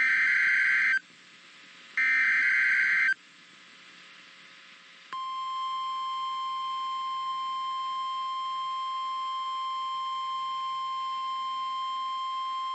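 Emergency alert header: two bursts of warbling digital data tones about a second long each, a couple of seconds apart, as heard in an EAS/SAME broadcast. After a brief stretch of hiss, the steady single-tone NOAA Weather Radio warning alarm begins about five seconds in and holds unchanged.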